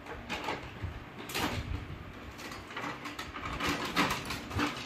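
Clear plastic packaging bag crinkling and rustling in irregular bursts as it is pulled open and the plastic toy truck parts inside are handled.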